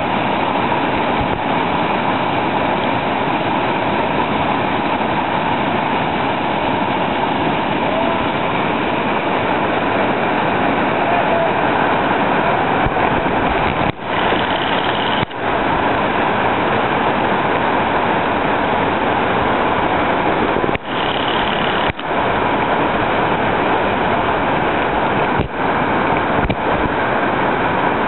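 Whitewater rapid rushing loudly and steadily as the river churns over and between boulders, dipping briefly a few times.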